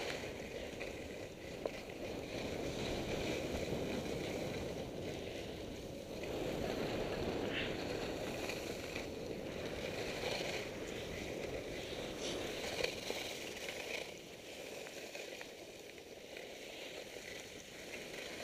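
Skis sliding and scraping over packed snow as a skier runs downhill, a steady rushing noise that eases off about fourteen seconds in.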